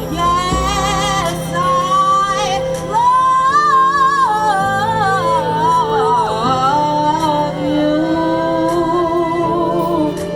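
A female lead singer sustains and bends a long wordless melodic run with vibrato over held backing chords, closing out the song.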